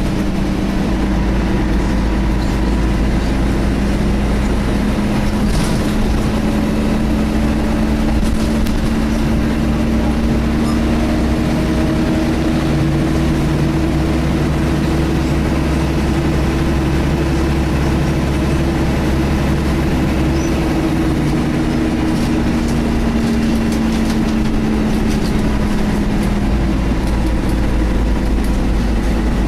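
Scania L113 bus running, heard from inside, with the engine cooling fan's steady hoover-like whine over a low engine rumble. The whine's pitch drifts slowly, and light rattles come and go.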